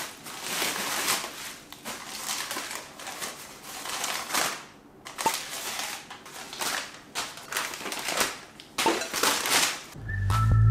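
Packing paper and a plastic bag crinkling and rustling as dishes are unwrapped. Electronic music with a heavy bass comes in near the end.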